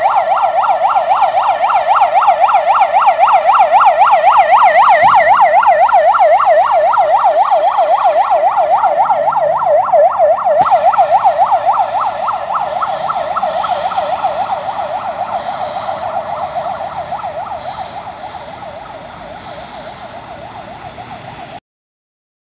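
Electronic yelp siren of a Mitsubishi L200 fire-service officer's vehicle on an emergency run, rapidly sweeping up and down in pitch without a break. It grows gradually fainter over the second half and cuts off suddenly near the end.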